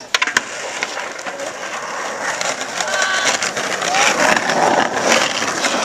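Voices of people talking and calling out in the background over a steady rough noise, with a few sharp clicks just after the start.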